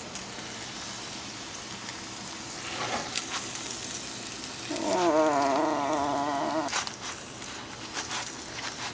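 A tortilla sizzles faintly in a cast-iron skillet while a spoon scrapes peanut butter across it. About halfway through, a drawn-out wavering call lasting about two seconds rises over it and is the loudest thing heard.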